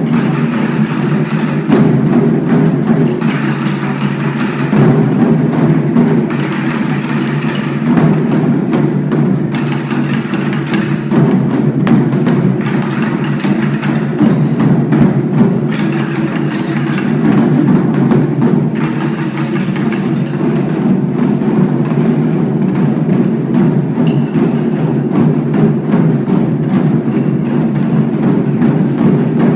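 A group of children playing taiko-style barrel drums together with wooden sticks, drumming a rehearsed ensemble piece without a pause.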